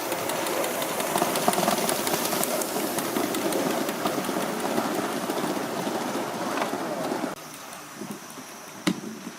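Gauge One model train running on the track, a steady rushing noise that cuts off abruptly about seven seconds in, followed by a single sharp click near the end.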